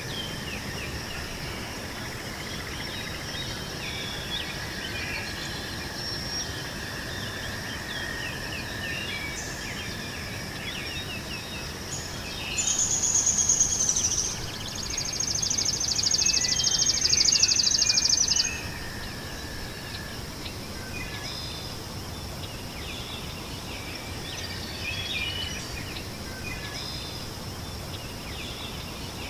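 Meadow ambience: many small birds chirping over a steady high insect drone, with a louder rapid buzzing trill in two bursts about halfway through.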